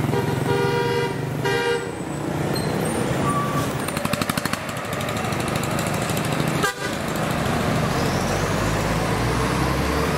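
Street traffic of motorbikes and small trucks running past. A vehicle horn toots twice in quick succession near the start. About four seconds in, an engine gives a rapid, even putt-putt, and a low engine drone builds near the end.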